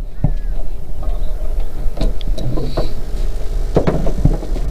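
Boat's outboard motor running at slow trolling speed, a steady low rumble, with several short knocks from gear on the boat.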